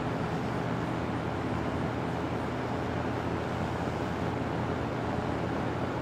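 Circa-1978 Lasko-built Western Auto Citation wide-blade box fan running steadily: an even rush of air from the blades over a low motor hum.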